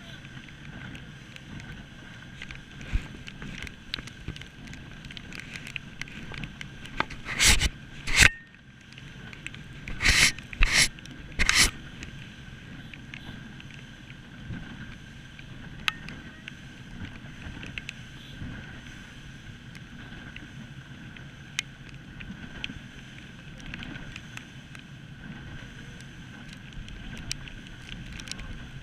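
Rigid inflatable boat under way: a steady engine hum under the rush of wind and water. About a third of the way in comes a short run of five loud, brief bursts.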